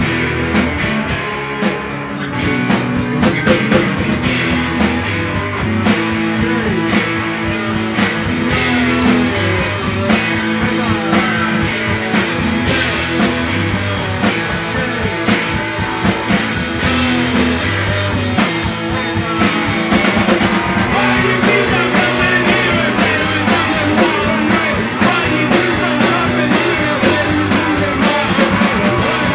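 Rock band playing live: guitar, bass and a drum kit driving a steady beat, with cymbal hits.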